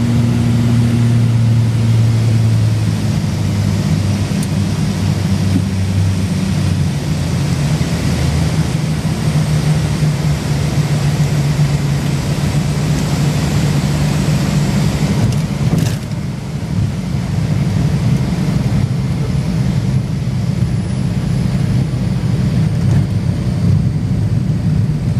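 The Cessna 402C's twin turbocharged Continental six-cylinder piston engines and propellers droning steadily inside the cockpit during landing. The pitch of the drone shifts about two to three seconds in, and a brief thump comes about sixteen seconds in.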